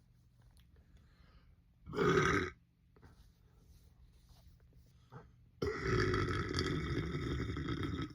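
A person belching: a short burp about two seconds in, then a long, drawn-out burp lasting about two and a half seconds near the end.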